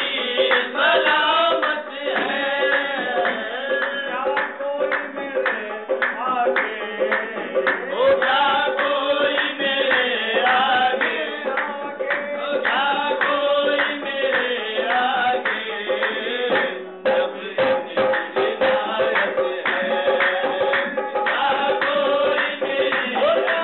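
Qawwali music: men singing to a harmonium, with hand-clapping and a hand drum keeping the beat. The sound is thin, with no high end.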